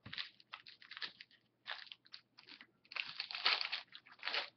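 Hockey card pack wrapper being torn open and crumpled by hand: irregular crinkling that is densest about three seconds in.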